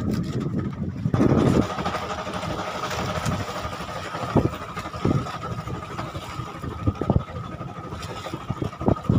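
Small boat engine running steadily at idle, with a thin steady whine that comes in about a second in. A few sharp knocks sound over it.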